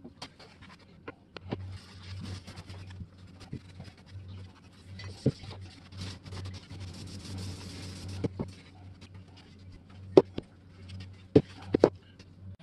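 Cloth rubbing and wiping on a cast iron level frame, in two scratchy stretches, with a scatter of sharp knocks and clicks as the frame is handled and set down on the bench, the loudest near the end. A low steady hum runs underneath most of the time.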